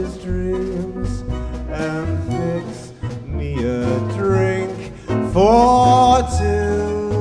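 Live band music with a man singing over steady bass notes; about five seconds in, a strong note bends up and is held for about a second.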